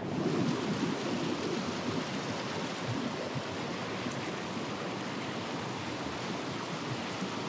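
Mountain stream water rushing over rocks and small cascades, a steady rush that is a little louder in the first second or so.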